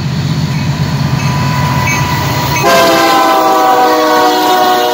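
Union Pacific diesel freight locomotive passing close, its engine rumbling low. About two and a half seconds in its air horn sounds a loud chord of several notes and holds it, the pitch sagging slightly as the locomotive goes by.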